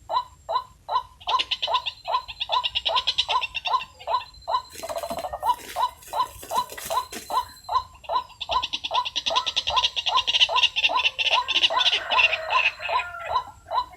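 White-breasted waterhens calling: a rapid, rhythmic run of repeated calls at about four a second. A hissing rustle runs under the calls for a couple of seconds in the middle.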